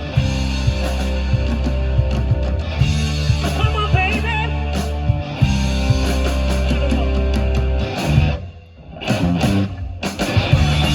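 Rock band playing, with electric guitar, bass and drums; about eight seconds in the band stops briefly for a second or so, then comes back in.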